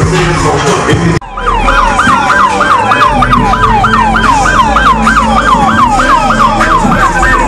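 Music cuts off about a second in, and a fast yelp siren takes over: a rapid rising and falling wail, about three cycles a second, over a steady deep bass.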